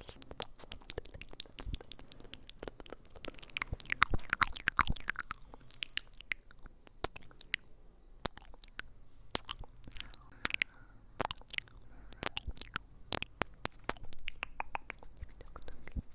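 Close-miked ASMR trigger sounds: a dense, irregular run of sharp clicks and crackles, loudest about four to five seconds in.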